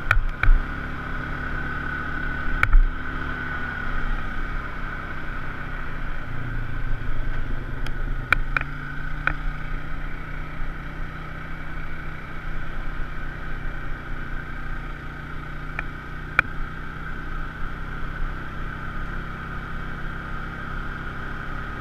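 Side-by-side UTV engine running steadily under way, its pitch stepping up about six seconds in, with a few sharp clicks and knocks scattered through.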